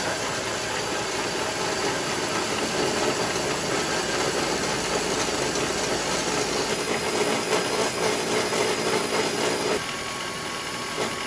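Horizontal metal-cutting bandsaw running and sawing through a piece of steel railroad rail: a steady mechanical noise with a hum in it. The hum fades and it gets slightly quieter about ten seconds in.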